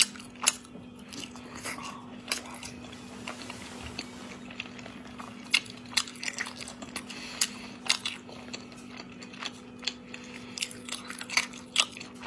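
A person chewing spicy snail meat close to the microphone: wet chewing with irregular sharp clicks and crunches. A steady low hum sits underneath.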